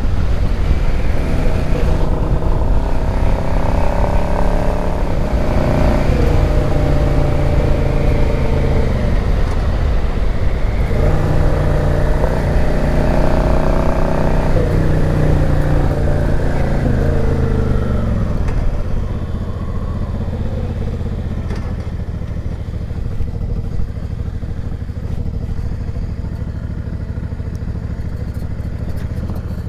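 Yamaha XVS650 V-Star's V-twin engine riding under way, its pitch climbing and then dropping away several times as the gears change. For the last third it runs lower and steadier.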